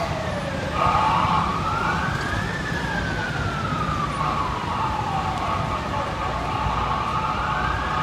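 Hatzolah EMS ambulance siren sounding a slow wail. The pitch climbs for about two seconds, sinks for nearly four, then climbs again near the end, over the low rumble of city traffic.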